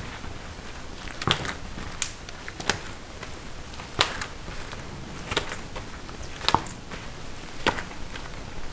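Sharp clicks and knocks, about seven in all at roughly one a second, from hard candy being worked by hand.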